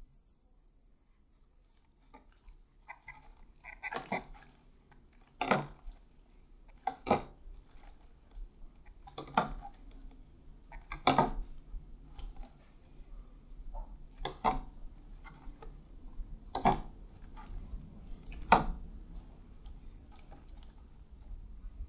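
A mixing utensil knocking against a glass bowl while stirring a thick, wet slime mixture, with about eight sharp clinks a second or two apart and faint scraping and stirring between them.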